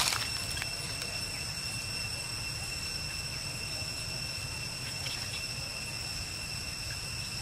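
Insects droning with a steady, unbroken high-pitched whine over a low outdoor rumble.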